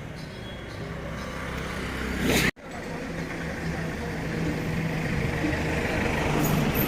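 An engine running steadily, with a short loud sweep about two and a half seconds in and a sudden momentary cut-out just after it.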